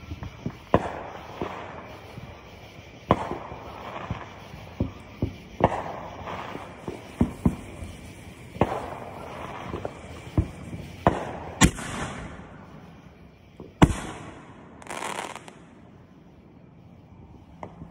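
Fireworks going off: a string of sharp bangs at irregular intervals, many trailed by crackling, with the loudest bang about two-thirds of the way through. Hissing, crackling bursts come around the middle and again a little later.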